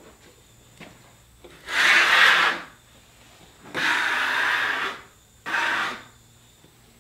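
Hand scraper pushed along the rough-sawn face of a freshly milled quarter-sawn board, three scraping strokes, the middle one the longest.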